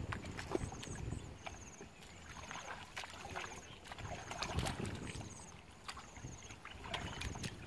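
Hands and booted feet splashing and squelching in shallow muddy water, in irregular sloshes and slaps, as people wade and grope through the mud by hand. A faint high chirp repeats about once a second.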